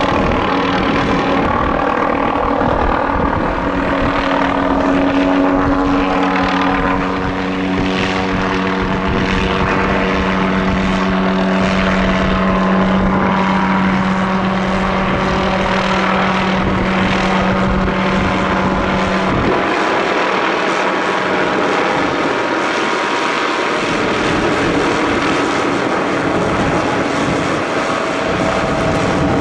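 MD530F light turbine helicopter running, with a steady high-pitched hum over a pulsing rotor noise. A little past the middle, the steady low tone stops and the deep rumble thins out for a few seconds.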